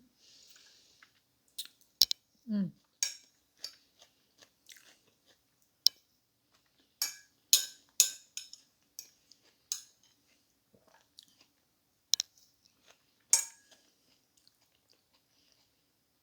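A person chewing and eating food close to the microphone: irregular wet mouth clicks and crunches, with louder crunchy bites around the middle and near the end.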